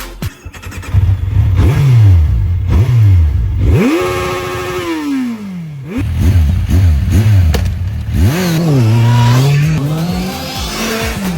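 Kawasaki Z1000 inline-four engine being revved in a series of short blips, the pitch climbing and dropping each time, with one longer rev about four seconds in that holds briefly before falling away.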